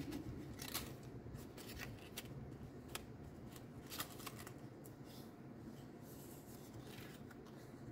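A sheet of white paper being folded and creased by hand: faint, scattered rustles and crackles.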